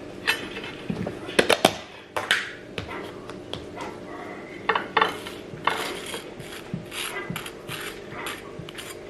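Kitchen utensils clicking, scraping and clinking against a pan and dishes in an irregular string of short sharp knocks, the loudest a quick cluster about one and a half seconds in.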